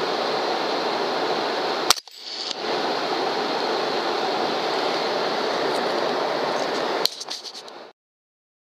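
Two suppressed rifle shots from an AR-style .300 HAM'R, about two seconds in and about seven seconds in, over a loud steady hiss. The hiss drops out briefly after the first shot, then fades after the second and cuts off.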